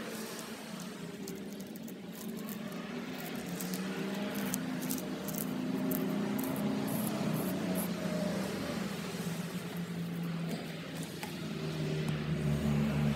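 A vehicle engine running steadily in the background, its low pitch drifting slightly and growing a little louder near the end. Light clicks in the middle come from handling braided hose and its AN fittings.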